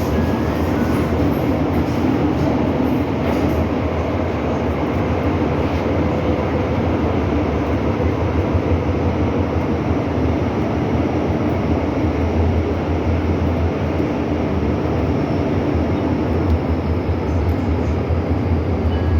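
MTR Island Line M-Train (Metro-Cammell electric multiple unit) running at steady speed through the underground tunnel, heard on board as a continuous rumble of wheels and traction equipment.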